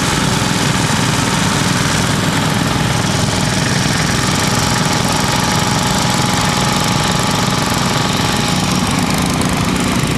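Small engine of a walk-behind two-wheel tractor running steadily as it pulls a plough, cutting a furrow through grassy soil.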